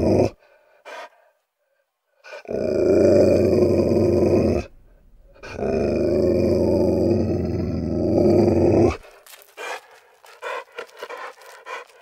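A dog growling: two long, low growls, the first about two seconds long and the second about three, followed near the end by a quick run of short, clipped sounds.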